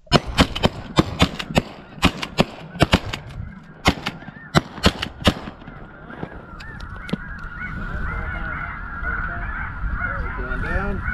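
A rapid volley of shotgun shots, about twenty sharp reports in five seconds, from several guns firing at once. Then a loud, dense chorus of snow geese honking.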